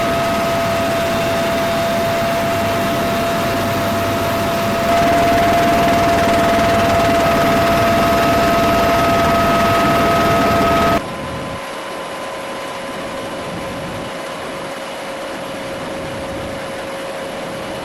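Military aircraft turbine engines running, a steady high whine over a wide rushing noise. The sound cuts abruptly between shots: louder about five seconds in, then quieter with a lower whine from about eleven seconds in.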